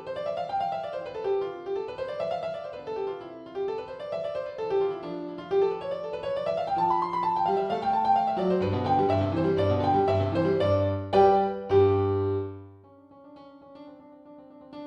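Background piano music: quick notes running up and down in repeating arpeggios, with low bass notes joining about two-thirds of the way through, then dropping to a few quieter held notes near the end.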